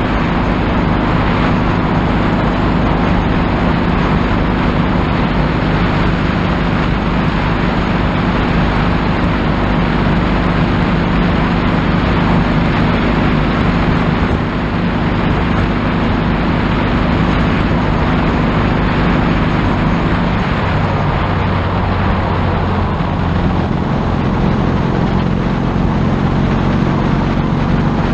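Motorcycle engine running steadily at cruising speed, heard under heavy wind and road rush on the helmet-mounted action camera's microphone. The engine note settles lower about two-thirds of the way through.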